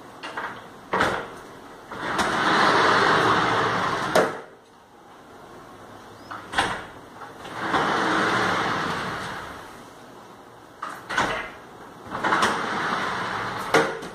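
Frameless glass balcony-enclosure panels sliding one after another along their track: three long rolling runs of about two seconds each. Sharp clicks and knocks come between the runs as the panels are handled and stop.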